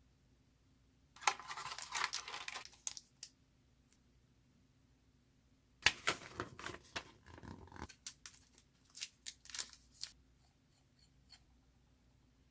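Fountain pen packaging being handled and torn open: two bursts of crinkling and tearing, about a second in and again from about six seconds in, with scattered sharp clicks.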